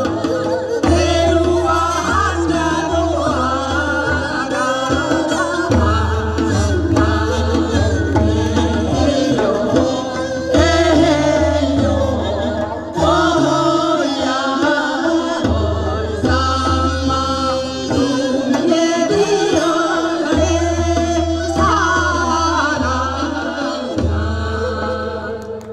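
Women singing a Korean folk song (minyo) into microphones, a solo voice joined later by a second singer, over an instrumental accompaniment with a steady drum beat.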